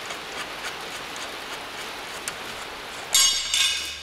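Steady faint hiss with light scattered ticks, then about three seconds in a loud metal-on-metal clinking and ringing of hand tools at the wheel's axle nut, in two short bursts.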